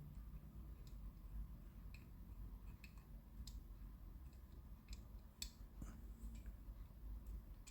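Chrome paint marker being pumped to prime its tip: faint, irregular light clicks, about one a second.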